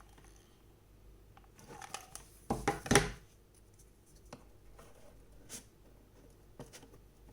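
Hands handling wooden sticks and cardboard: scattered faint clicks and rustles, with a louder cluster of knocks and scraping about two and a half to three seconds in.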